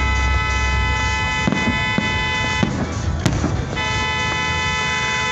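A horn sounding in two long, steady blasts: the first breaks off about two and a half seconds in, and the second starts about a second later and holds to the end. Sharp fireworks bangs go off between and under them, the loudest just after the first blast stops.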